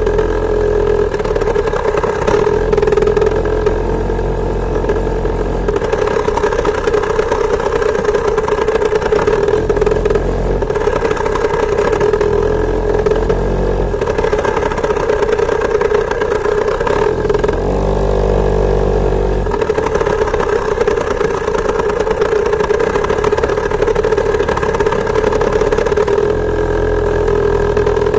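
Two-stroke chainsaw engine of a homemade moped running under way, loud and steady, with its note shifting as the throttle changes, most clearly for a couple of seconds about two-thirds of the way through.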